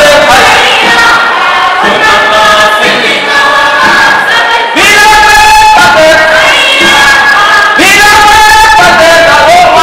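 Voices of a Kalenjin performing group singing a traditional song together, loud and sung in phrases, with new phrases starting about halfway through and again near the end.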